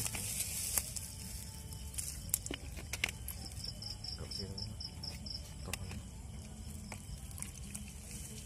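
Insects chirping: a quick string of high, evenly spaced pulses, about five a second, through the middle, over a steady low background rumble, with a few faint sharp clicks.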